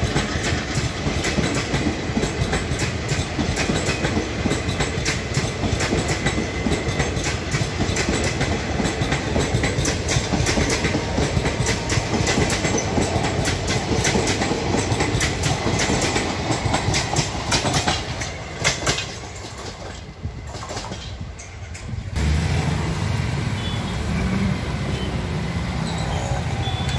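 Indian Railways passenger train rolling past, with a steady rumble and the wheels clicking over rail joints in an even rhythm. About two-thirds of the way through the train sound drops away as the last coach passes, and after a short lull the engines of motorcycles and other road traffic pull across the tracks.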